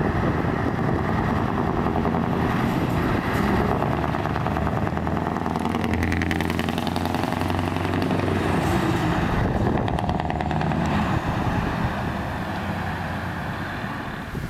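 A V8 truck driving past. The engine sound is steady and loud, deepest about six seconds in as the truck passes, then fades as it pulls away near the end.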